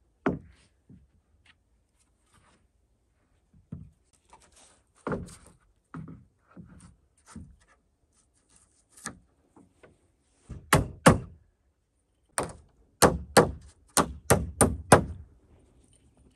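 Wooden roof boards being shifted and set down, with soft knocks and scrapes of wood on wood. In the second half comes a run of about ten sharp blows from the hammer poll of a hatchet driving nails into the boards.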